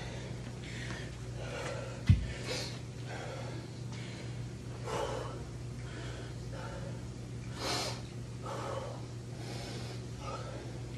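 A man breathing hard after a set of burpees, loud breaths coming about every second or so. A single sharp thump about two seconds in.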